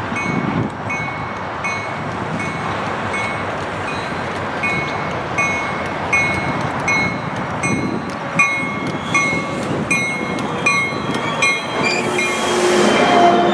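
A railway bell rings steadily, a little faster than once a second, while a Trinity Railway Express commuter train runs on the rails. Near the end a brief hiss comes in and the train grows louder.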